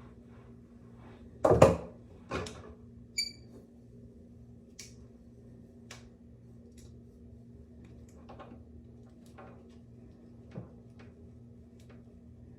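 Objects being handled: a loud knock about a second and a half in, a second knock, then a short ringing clink, followed by scattered light clicks over a low steady hum.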